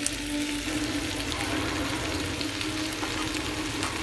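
Curry-seasoned watermelon rind and onion sizzling steadily as they sauté in a stainless steel pan over medium heat. A steady low hum runs underneath, and there is a light click at the very start.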